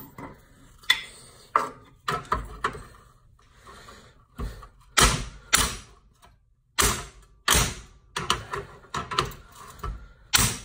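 Hammer blows on metal under a Club Car golf cart, knocking on the steering connecting rod's joint to drive it loose, with a second hammer held behind as a backer. The strikes come irregularly at first, then quicker and more evenly near the end.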